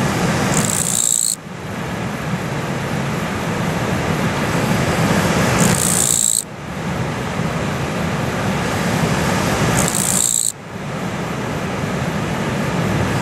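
A katydid, which the recordist takes for a Japanese katydid (kirigirisu), gives three short, high-pitched buzzing calls about four to five seconds apart. A river's steady rushing runs loudly under them.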